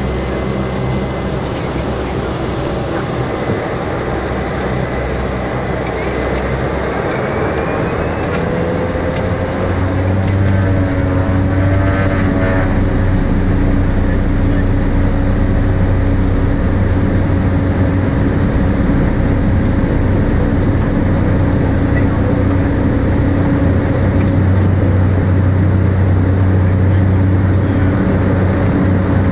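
Cessna Grand Caravan's single Pratt & Whitney PT6A turboprop heard from inside the cabin. Its whine rises and the engine grows louder about seven to twelve seconds in as power comes up, then it runs steady at high power.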